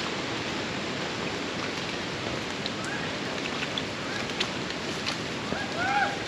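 Steady hiss of rain, with a few short faint calls near the middle and the end.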